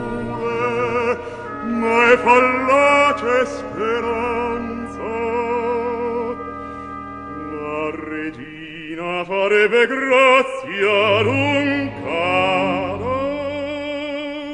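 Operatic singing from a studio recording with orchestra: a solo voice with wide vibrato sings held phrases broken by short gaps, with a brief lull about eight seconds in.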